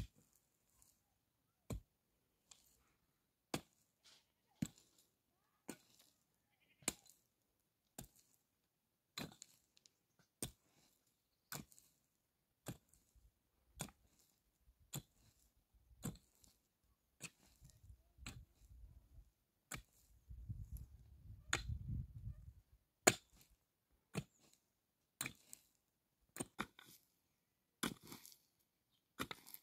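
A long series of sharp knocks, like strokes of a tool, roughly one a second and fairly even, with a low rumble under them about two-thirds of the way through.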